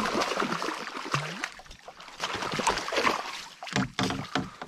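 Water splashing in repeated sharp bursts as a hooked fish thrashes at the surface and is scooped into a landing net beside the kayak.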